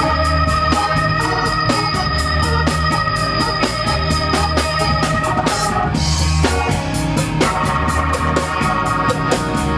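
Live band playing an instrumental passage: drums with a steady hi-hat at about four ticks a second, a pulsing bass line and hand-played congas under long held organ-like chords. The held chord stops about five seconds in, and a new chord comes in a little later.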